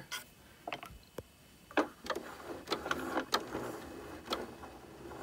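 Scattered light clicks and a faint mechanical whirr from a Janome 5060 QDC sewing machine's needle mechanism being handled and moved while it is oiled.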